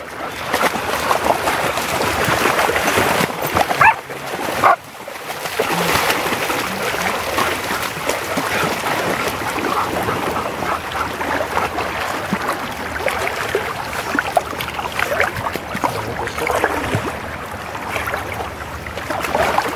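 Several dogs scuffling over a stick in shallow river water: splashing, with short dog vocal sounds now and then.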